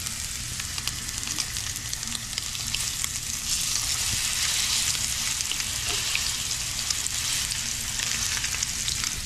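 Seasoned fish fillets sizzling and crackling in hot olive oil in a cast-iron skillet. The sizzle grows louder about three and a half seconds in, as a second fillet is laid into the oil.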